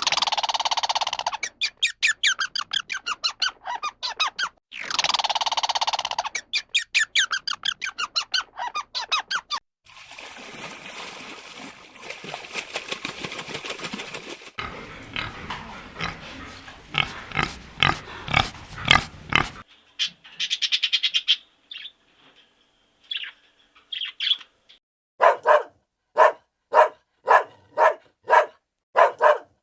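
Animal calls: two long squealing cries, each followed by a run of short pulsed notes, then more runs of short calls and, near the end, a string of evenly spaced short calls about one and a half a second.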